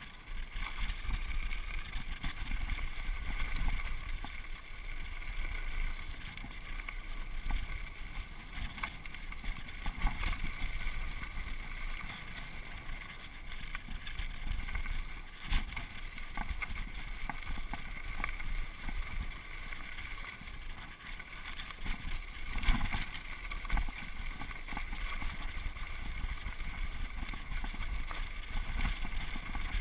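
Mountain bike rolling fast down a dirt singletrack: wind rushing over the camera microphone and tyres running over the dirt. A few sharp knocks and rattles come from the bike over bumps, the loudest about three-quarters of the way through.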